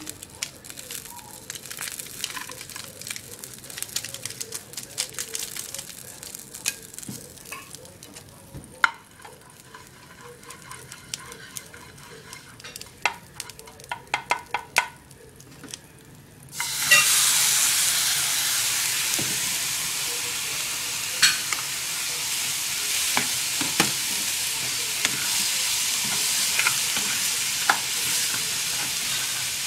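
Light clinks and knocks of a spatula in a small nonstick frying pan. About halfway through, a sudden loud sizzle starts as pineapple chunks hit the hot pan, and they keep frying with the spatula stirring and scraping through it.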